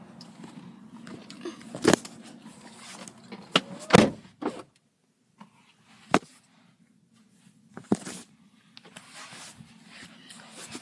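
Knocks and thumps inside a parked car as someone settles in and handles the car's fittings and the phone: about six sharp knocks, the loudest about four seconds in.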